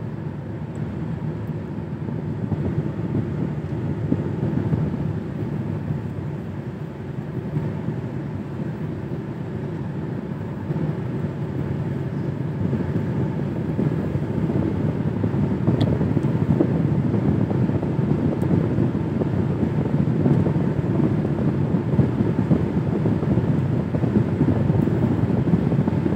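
Steady road and engine noise heard from inside a moving car's cabin, its tyres running on a wet road. The noise grows a little louder about halfway through.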